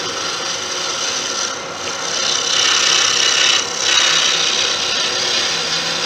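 A turning gouge scraping a spinning deer-antler pen blank on a Laguna 1836 wood lathe, halfway between a scrape and a bevel cut, taking small bites that come off as dust-like chips rather than shavings. It makes a steady rasping hiss that swells louder about two seconds in, with the lathe's motor hum underneath.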